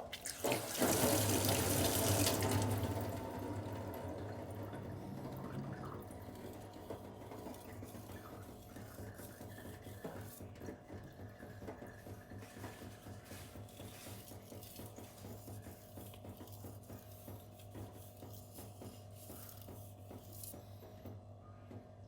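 Knife blade scraped back and forth in rapid, repeated strokes on a wet 1000-grit silicon carbide whetstone, with the burr coming off the edge. The first few seconds hold a much louder rushing hiss that then fades.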